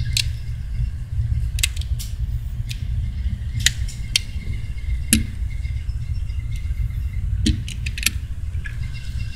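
Scattered sharp metallic clicks of 9 mm cartridges and a pistol magazine being handled, over a steady low rumble.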